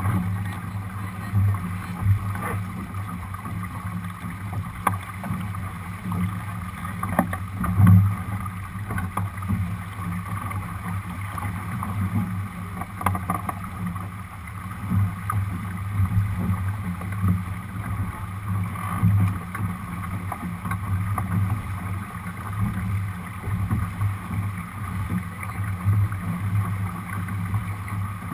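Water rushing and splashing along the hull of a Lightning sailing dinghy under sail, with wind buffeting the microphone. A few knocks from the boat, the loudest about eight seconds in.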